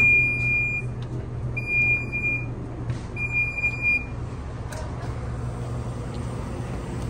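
Three long electronic beeps at one high pitch, each just under a second with short gaps, over a steady low hum: a warning signal on board a Sapsan high-speed train standing at a station stop.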